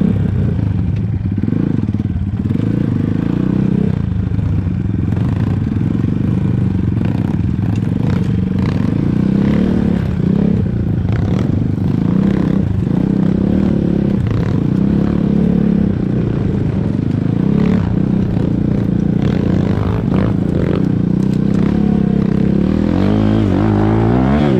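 Mikilon MZK 250 four-stroke enduro motorcycle riding off-road, its engine running steadily and rising and falling in pitch with the throttle, with frequent clattering knocks over rough ground. Near the end the engine revs up.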